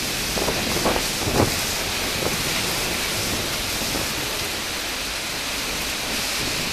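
Heavy rain pouring down in a dense, steady hiss, with a few louder spatters about a second in.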